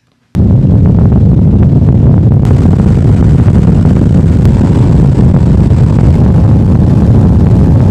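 Bass boat running at speed across the lake: a loud, steady roar of outboard motor and wind on the microphone, cutting in suddenly a moment in.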